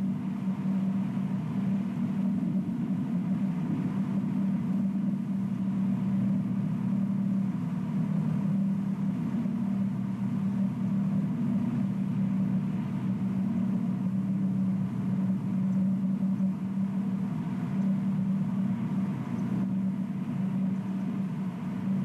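A steady low mechanical hum that does not change in pitch or level.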